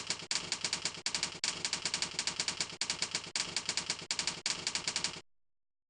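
Typewriter keys clacking in quick runs of about eight strokes a second, with short breaks between runs, as a line of text is typed; they stop about five seconds in.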